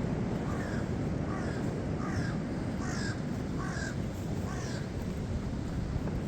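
Crow cawing repeatedly: about seven short calls at an even pace, over a steady low rumble.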